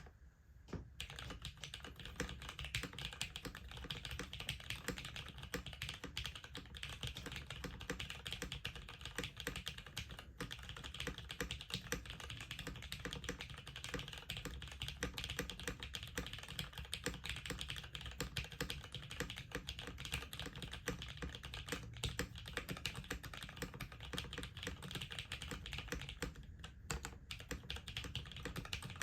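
Continuous fast typing on a brass-weighted, top-mount mechanical keyboard with a polycarbonate plate and lubed, filmed vintage Cherry MX Brown tactile switches under GMK keycaps, beginning about a second in.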